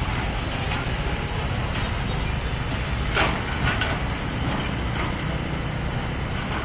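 Kobelco hydraulic excavator working, its diesel engine running with a steady low rumble. A few brief higher-pitched squeaks or clanks come through about two and three seconds in.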